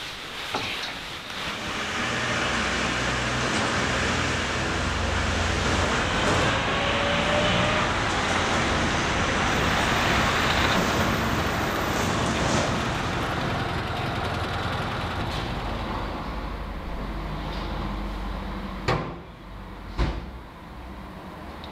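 Classic Fiat 500's air-cooled two-cylinder engine running as the small car drives up, swelling to its loudest midway and then fading. Near the end come two sharp thumps about a second apart, car doors shutting.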